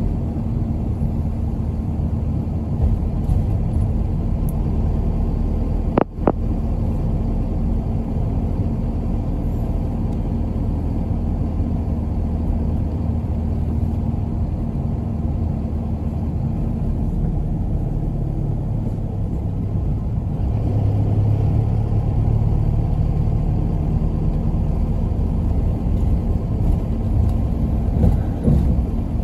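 Route bus engine and road noise heard from inside the cabin: a steady low rumble with a constant hum. There is one sharp click about six seconds in, and the engine note picks up and rises around twenty seconds in as the bus pulls harder.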